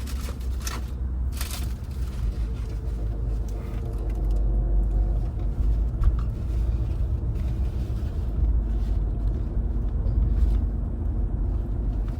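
Steady low rumble of a car heard from inside the cabin, getting a little louder about four seconds in, with a few sharp clicks in the first two seconds.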